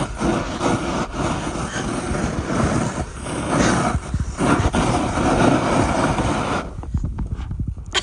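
A snowboard and rider skidding down an icy slope, a loud continuous scraping rush over hard, icy snow that cannot be stopped, easing off about seven seconds in.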